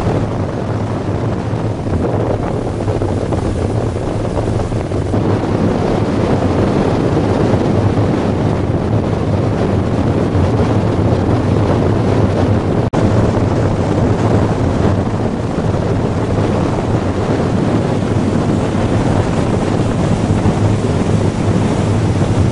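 Pontoon boat's outboard motor running under way, with a steady low hum under heavy wind rushing over the microphone.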